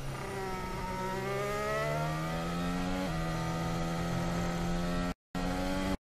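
Formula 1 car's 1.6-litre turbocharged V6 (Honda RA621H) accelerating out of a slow corner on full throttle. Engine pitch climbs steadily, steps with an upshift about three seconds in, then stays high. The sound cuts out for a moment near the end.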